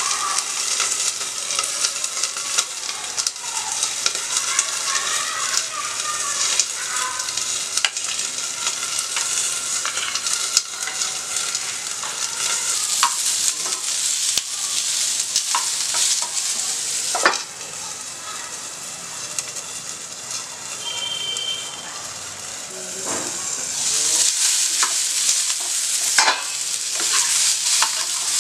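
Thickly cut onion wedges sizzling as they fry in a little oil in a kadai, stirred with a metal spoon that clicks and scrapes against the pan. The sizzle eases off for a few seconds past the middle, then grows louder again.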